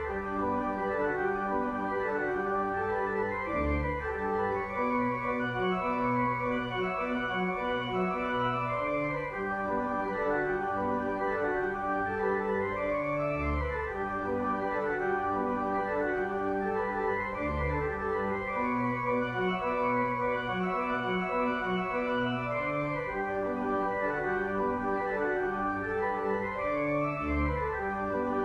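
Organ music: sustained chords moving steadily from one to the next, with deep bass pedal notes sounding now and then.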